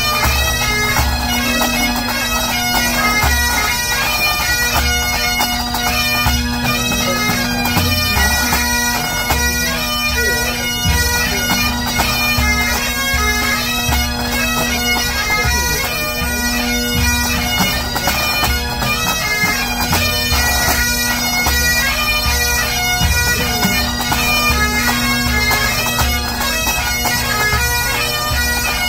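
A pipe band playing: Great Highland bagpipes sounding a melody over their steady drone, with the snare, tenor and bass drums beating time underneath.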